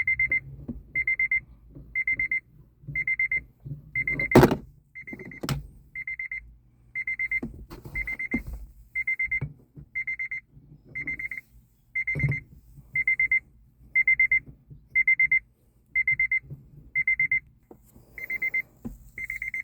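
Car's interior warning chime beeping steadily about once a second, each beep a fast pulsed tone. A few knocks and clunks from hands working at the shifter, the loudest a sharp knock about four seconds in.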